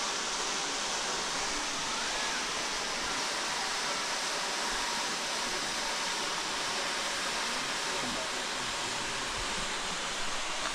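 Steady rush of falling water: a waterfall's constant hiss with no breaks.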